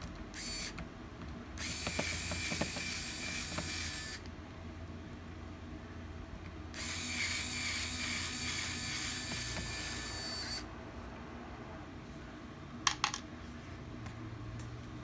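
Small electric screwdriver whirring in two steady spells of three to four seconds each, with a short burst just before, backing screws out of a laptop's bottom case. A couple of sharp clicks come near the end.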